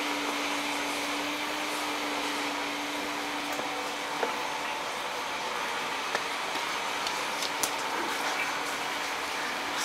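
A steady rushing noise with a low hum that fades out about four seconds in, with a few faint clicks.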